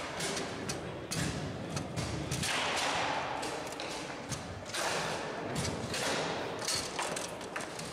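Bonzini foosball table in play: irregular sharp knocks and clacks as the ball is struck by the figures and bangs off the table walls, with the rods knocking as players shift and snap them.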